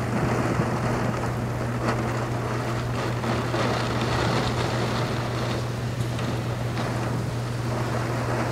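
Heavy rain and gusting wind of a tropical storm: a steady rushing noise that swells and eases with the gusts, over a constant low hum.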